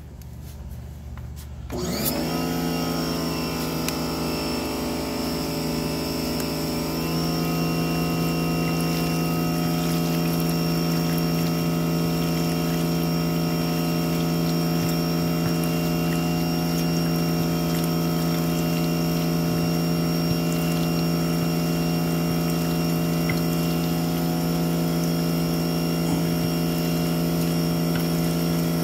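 Sun Joe electric pressure washer switching on about two seconds in and then running steadily with a strong hum, driving a sewer jetter hose into a clogged kitchen drain line. Water splashes out of the drain cleanout into a plastic tub.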